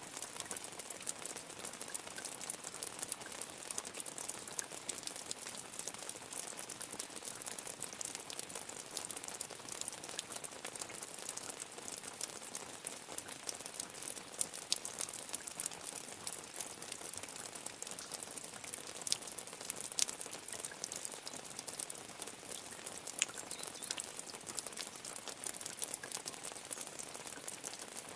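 Rain falling steadily, a dense crackle of many small drops ticking close by, bright and hissy with no low rumble.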